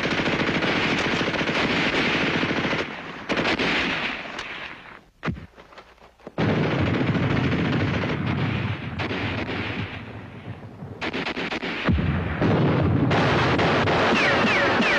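Machine-gun and rifle fire in long rattling bursts, breaking off briefly about five seconds in before resuming.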